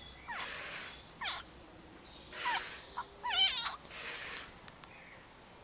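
A cat giving several short, high meows that fall in pitch, with one longer call about halfway through that wavers up and down.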